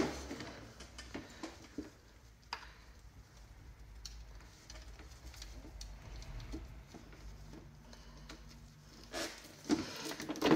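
Quiet handling noise from gloved hands working cables through a SNOO bassinet's plastic base: scattered light clicks and soft rustles, with a few louder rustles near the end.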